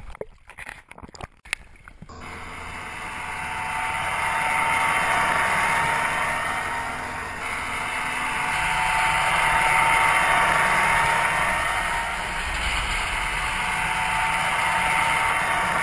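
Brief splashing and clicks of water at the surface, then, about two seconds in, the steady rush of a small motorboat running underway: engine, water along the hull and wind.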